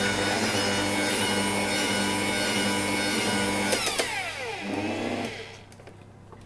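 Electric stand mixer beating muffin batter at a raised speed, a steady motor whine. About four seconds in it is switched off and the motor winds down to a stop, falling in pitch over about a second and a half.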